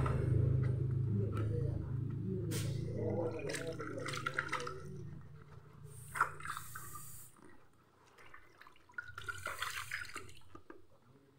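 Water sloshing and splashing in a plastic tub as hands rub a rubber motorcycle inner tube under water to soak off the backing of a freshly vulcanized patch, with louder splashes near the end. A low hum fades out about halfway through.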